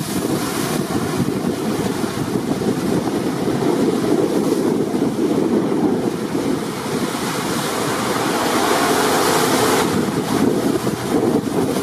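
Gale wind buffeting the microphone over a stormy sea, with waves and surf rushing without a break. The hiss swells for a couple of seconds about two-thirds of the way through.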